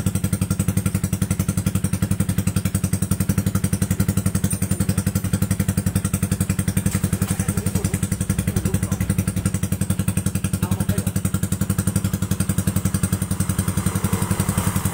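Motorcycle engine idling steadily through an aftermarket racing exhaust, a new 'Star 1' competition-type muffler, with an even, rapid exhaust pulse.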